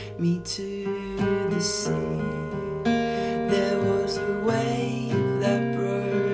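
Acoustic guitar in open D A D G A E tuning with a capo at the first fret, playing an instrumental passage of ringing strummed chords, heard as an iPhone voice-memo recording.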